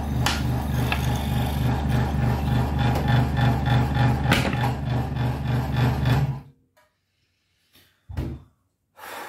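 Electric benchtop scroll saw running, its motor hum pulsing about three times a second, until it is switched off about six seconds in. Two short knocks follow near the end.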